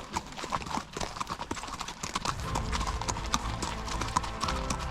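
Icelandic horses' hooves clip-clopping steadily, a quick run of hoof strikes. About halfway through, a low rumble and background music come in under the hoofbeats.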